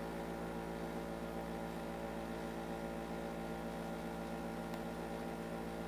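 Steady electrical mains hum with many overtones over a low hiss, picked up by the recording microphone; one faint click near the end.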